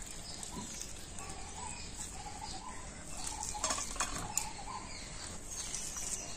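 Hands squeezing the water out of salted, shredded cabbage and onion, with drips and wet handfuls dropping into a stainless steel bowl, and a few light taps on the steel about four seconds in. A faint wavering call sounds in the background.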